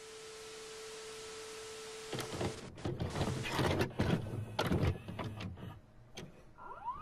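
Television static hiss with a steady tone, cutting off about two seconds in to a run of mechanical clicks and clunks from a VCR taking a tape and starting to play. Near the end there is a short rising tone.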